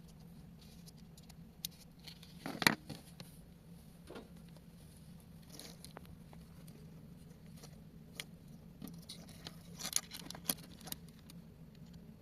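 Small tools and plastic parts being handled during a toy phone repair: scattered light clicks and taps, the loudest a sharp clatter about two and a half seconds in and a quick run of clicks near ten seconds, over a steady low hum.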